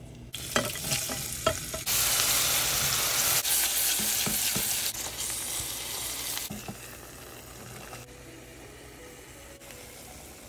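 Food sizzling and frying in hot oil in a nonstick pot, with a few clicks and scrapes of a silicone spatula stirring in the first two seconds. The sizzle starts suddenly and loud about two seconds in, then drops to a softer frying hiss after about six seconds.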